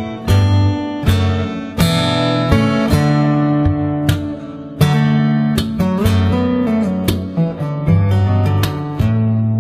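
Background music led by acoustic guitar, chords strummed and plucked in a steady rhythm.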